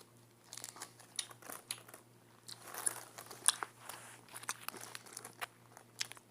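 A person crunching and chewing a lemon-flavoured sour candy: an irregular run of sharp crunches, the loudest about halfway through.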